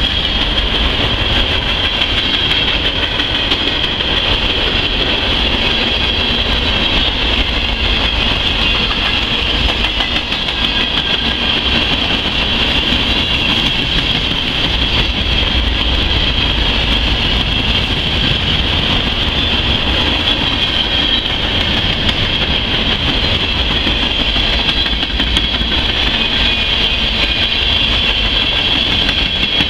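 Freight train cars (covered hoppers and tank cars) rolling past close by: a steady rumble of steel wheels on rail with a constant high-pitched ring over it.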